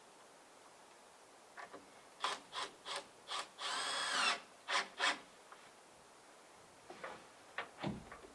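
Wood scraping against wood in short strokes, about three a second, with one longer squeak near the middle whose pitch rises and falls, then a few light knocks near the end.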